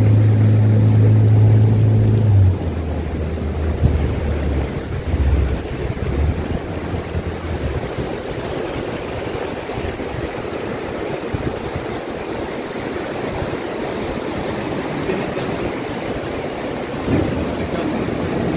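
A boat's motor running steadily, dropping lower about two and a half seconds in and dying away by about eight seconds. After that, surf washes around the outrigger boat as it comes into the shallows, with wind on the microphone.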